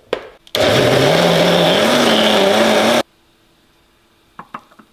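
Electric blender grinding boiled chillies and garlic into sambal: the motor runs loud for about two and a half seconds, its pitch rising as it spins up, then stops suddenly. A couple of light clicks follow near the end.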